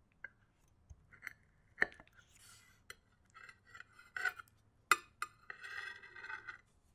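Metal knife cutting through a caramelised apple tarte tatin, its blade clicking against the ceramic plate several times. Between the clicks come soft sticky sounds of the caramel-soaked apple as a slice is worked loose and lifted.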